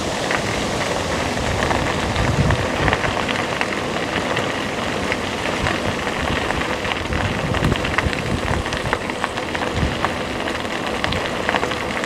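Wind rushing over the microphone while riding an electric bike, a steady noise with gusty low rumbling and scattered small crackles.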